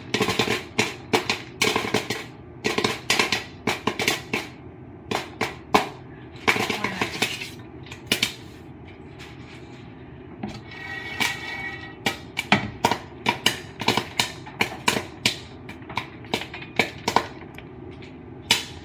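Popcorn kernels popping in hot coconut oil in a foil-covered pot on the stove: sharp, irregular pops, several a second. The pops are still coming close together, well short of the 1 to 2 second gaps that mean the batch is done.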